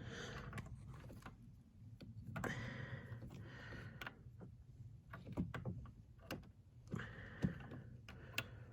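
Faint, scattered clicks and light knocks with brief rustling, from small parts and tools being handled.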